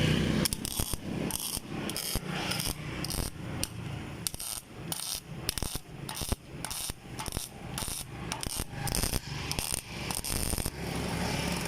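MIG welding arc from a Welcom V2000 welder running 0.8 mm wire with shielding gas, crackling irregularly and stopping near the end.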